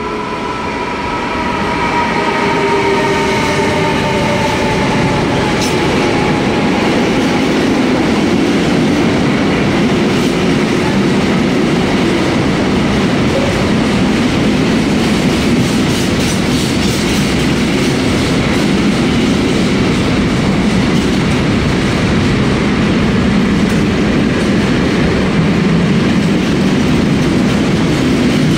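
Freight train hauled by an E.494 electric locomotive passing through a station: the locomotive's whine falls in pitch over the first few seconds as it goes by. Then a long string of loaded container wagons rolls past close by, with a steady low rumble and wheel clatter over the rail joints.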